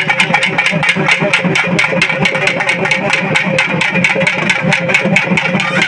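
Fast, even drumbeats from a festival drum band, several strokes a second, over a steady droning tone.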